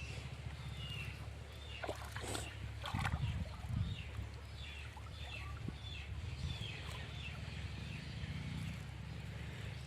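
Birds chirping over and over in short falling calls above a steady low rumble, with a few knocks about two to four seconds in.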